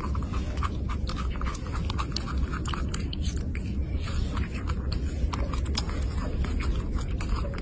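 An animal chewing and crunching, a rapid run of irregular crisp clicks over a low steady hum.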